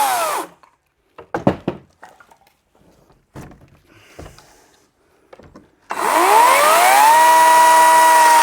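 Chainsaw winding down and stopping, then a few separate knocks, then the chainsaw spinning up again with a rising pitch about six seconds in and holding at full speed.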